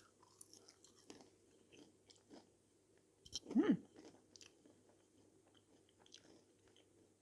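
Person chewing a crunchy microwave crinkle-cut chip: faint crunching and mouth clicks, with one brief louder voiced sound about halfway through.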